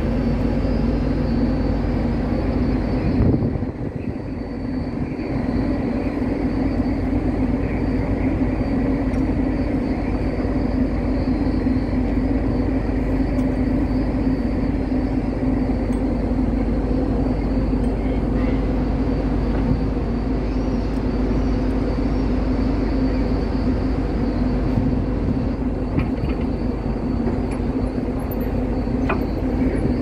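Steady low drone of a ferry's engines and onboard machinery, with a strong, even hum. A brief knock about three seconds in is followed by a short dip in level.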